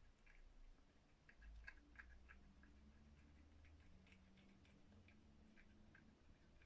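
A cat eating soft flaked fish from a bowl: faint, irregular smacking and chewing clicks, a few a second.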